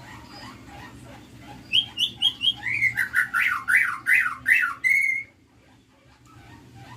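White-rumped shama (murai batu) singing: a loud phrase of a few short high notes, then rapid rising and falling whistles, ending on a held note, starting about two seconds in and stopping abruptly about five seconds in. Faint chirping runs underneath.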